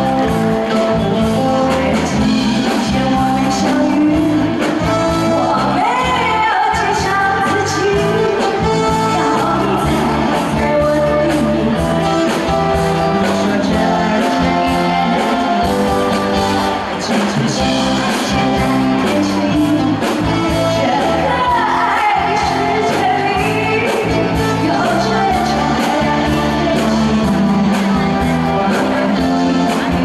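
A woman sings a Chinese pop song into a handheld microphone, backed by a live band and amplified through the hall's PA. The band plays a short instrumental opening, and her voice comes in about five seconds in.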